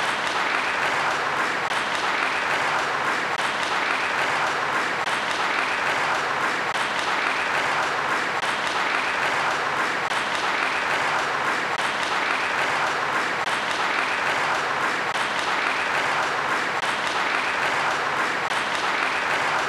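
Steady, unbroken applause from many hands clapping.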